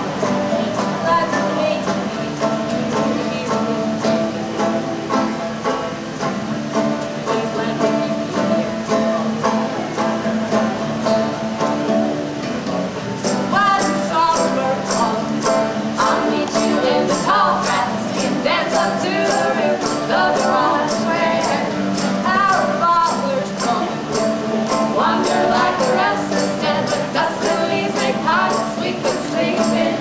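Live acoustic folk music: a melodica holds sustained notes over banjo, and women sing. About halfway through, a foot-played tambourine comes in with a steady jingling beat, about two strokes a second.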